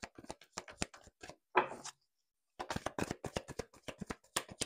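Tarot cards being handled and shuffled: light, irregular clicks and taps, several a second. They break off into silence for about half a second around the middle, then resume.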